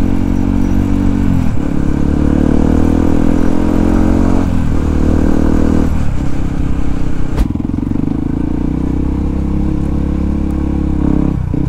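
Yamaha WR155R's single-cylinder four-stroke engine pulling through the gears, its pitch climbing and then dropping at three upshifts in the first six seconds, after which it runs steadier at cruising speed. The rider thinks its slip-on exhaust is leaking at the joint.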